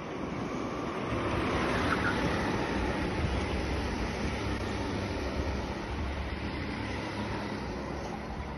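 Go-kart engines as a pack of karts passes close by, getting louder about a second in and then slowly fading as they pull away.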